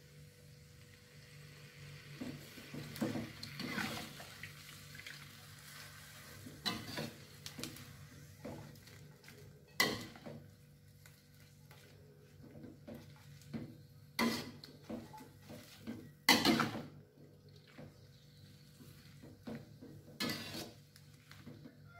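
Metal spatula scraping and clanking against a metal wok as a water spinach stir-fry is tossed. The strokes are irregular, with the sharpest clanks about ten, fourteen, sixteen and twenty seconds in, over a faint steady hum.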